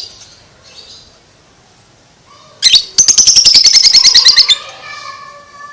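Lovebird giving its 'ngekek': a loud, rapid chattering trill of sharp, shrill notes, about a dozen a second, lasting about two seconds from halfway in. Fainter pitched calls sound before and after it.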